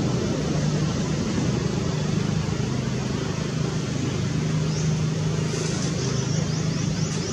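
Steady low engine-like drone over a constant background hiss, with a quick run of short, high chirps from about five seconds in.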